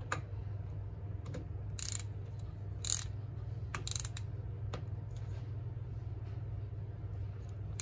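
Socket ratchet wrench clicking as it tightens the milling vise's hold-down nut on a T-slot bolt, in short irregular strokes. A steady low hum runs underneath.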